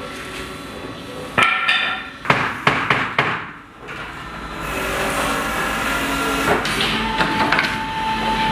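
Several hammer knocks and clatter of boards on a wooden wardrobe frame, bunched in the first half, followed by a steady noise from about halfway through.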